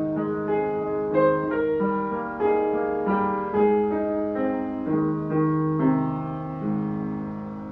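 Piano playing a slow, gentle melody over chords, each note struck and left to ring, growing softer near the end.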